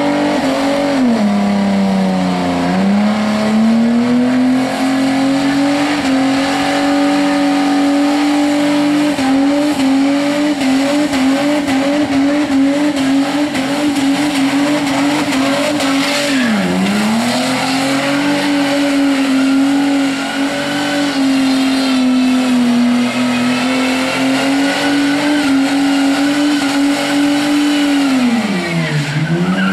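Holden VS Commodore wagon's V6 held at high revs during a burnout, with the spinning rear tyres squealing. The revs dip and climb back three times: about two seconds in, near the middle and near the end.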